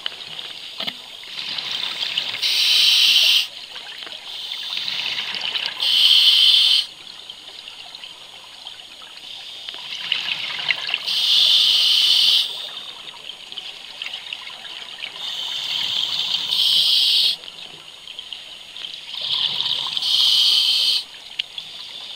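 Scuba diver breathing through an open-circuit regulator: a soft hiss on each inhale, then a loud rush of exhaled bubbles about every four to five seconds, five breaths in all.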